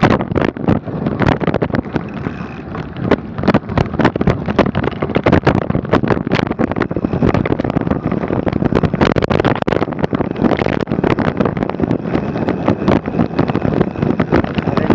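Mountain bike riding over rough, snowy trail: a constant rush of wind on the microphone with rapid knocks and rattles from the bike jolting over the ground.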